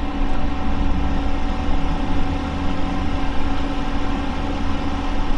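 Steady mechanical hum: a constant low rumble with two unchanging tones above it.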